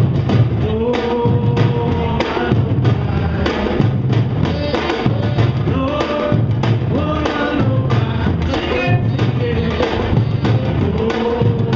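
Samba-reggae drum ensemble playing a steady groove: deep surdo bass drums under sharper repinique and timbau strokes, with a man singing into a microphone over the drums.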